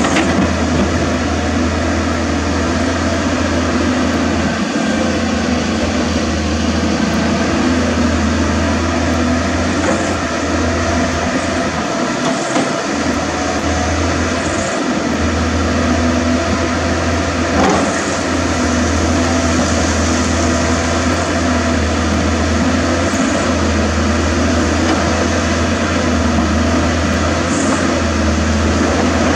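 CAT 320D hydraulic excavator's diesel engine running steadily under digging load, with its hydraulics working as the bucket cuts into an earth bank. A short knock comes a little past halfway.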